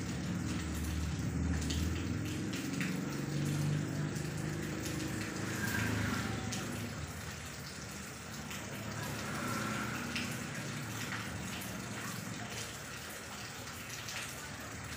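Steady rain falling on a corrugated roof and dripping off its edge, a continuous hiss with scattered small drop ticks, easing slightly over the course.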